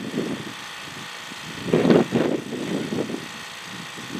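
Fortress 2-gallon electric air compressor running steadily, filling a tyre, with a louder burst of noise about two seconds in.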